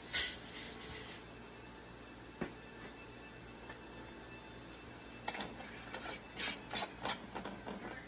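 Metal canning lid and screw band scraping and clicking against a glass jar as they are fitted on, in a run of sharp rasps late on. A brief hiss sounds just after the start.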